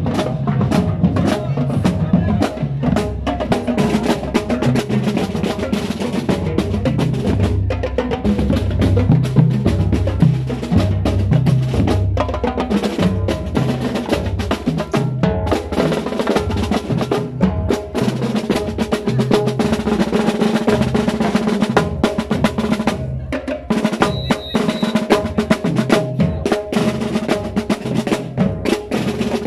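Marching drumline of a drum and lyre corps playing: snare drums, multi-tenor drums and bass drums beating a steady, busy rhythm with rolls.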